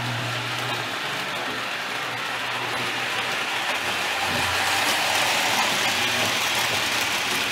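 Marx O-27 tinplate toy train rolling over three-rail track: a steady mechanical clatter of wheels and running gear that grows louder as the cars pass close by, about four to six seconds in.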